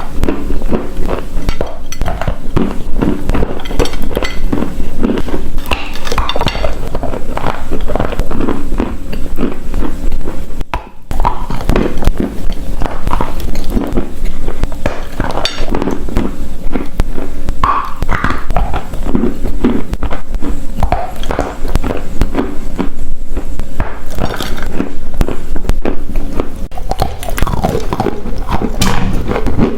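Close-miked crunching of dry edible clay being bitten and chewed: a dense, continuous run of crisp crunches with a brief pause about eleven seconds in.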